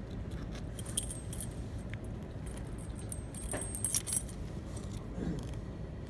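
Metal keys on a ring hanging from a transparent practice padlock jingling and clinking as the lock is handled and picked, in scattered light clinks with a busier, louder patch about four seconds in. A steady low background hum runs underneath.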